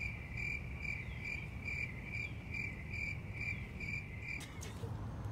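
Cricket chirping sound effect: a steady run of high chirps, a little over two a second, that starts abruptly and stops about four and a half seconds in. It is the stock 'crickets' gag for an awkward silence when nobody answers.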